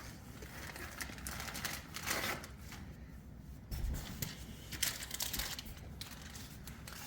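Plastic snack wrappers crinkling and rustling in irregular bursts as packets are handled and sorted, with a few small clicks and a soft thump about four seconds in.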